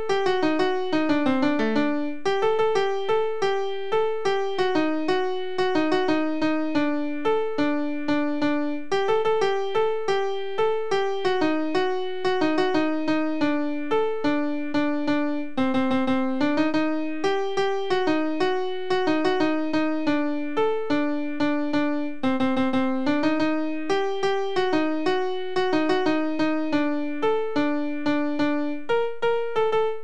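A single-line folk melody played back at a fast tempo by notation software in a synthesized piano voice, one short note at a time with no accompaniment or singing.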